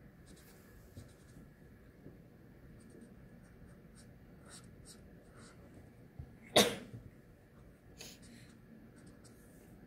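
Chisel-tip marker strokes rubbing and ticking faintly on sketchbook paper. About six and a half seconds in comes one sudden, short, loud burst, much louder than the strokes.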